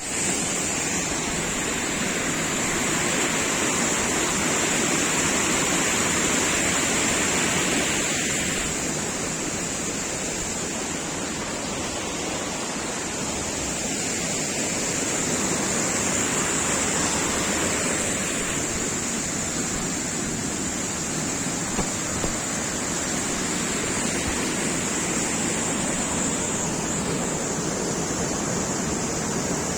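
Small waterfall rushing steadily, a dense even roar of falling water with a thin high hiss laid over it.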